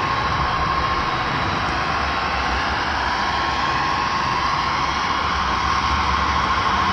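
HO-scale model train running along the track: a steady mechanical whir from the locomotive's motor, gears and wheels on the rails, with a constant high whine.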